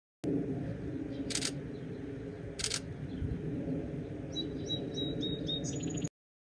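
Outdoor ambience: a low steady rumble, two short sharp clicks a little over a second apart, then a small bird chirping several quick notes near the end. The sound starts just after the beginning and cuts off abruptly shortly before the end.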